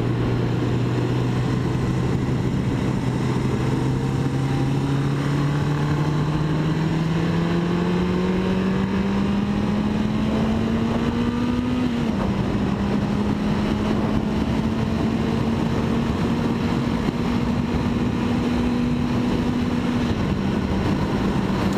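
Honda Nighthawk 650's inline-four engine under way, its note climbing steadily as the bike accelerates for about twelve seconds, then dropping suddenly with an upshift and holding steady, easing a little near the end. Wind rushes past the helmet throughout.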